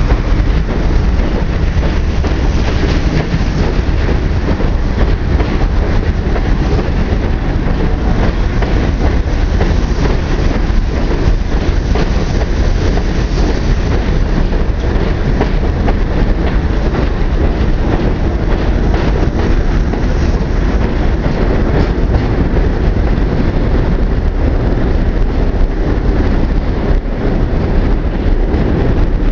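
New York City Subway 1 train cars rolling past close by: a loud, steady rumble of steel wheels on the rails, with clicking as the wheels pass over rail joints.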